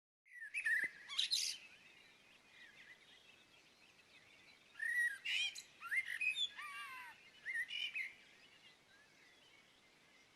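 Birds chirping and calling in several short bursts of quick, gliding notes, with a quiet outdoor background between them.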